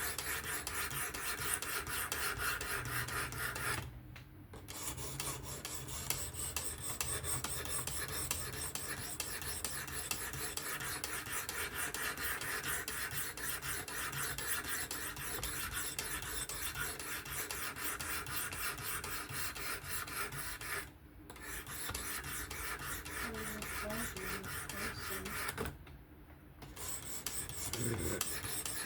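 600-grit sharpening stone of a Work Sharp Professional fixed-angle sharpener stroked rapidly back and forth along an S30V steel knife edge. It makes a continuous rasping scrape that stops briefly three times.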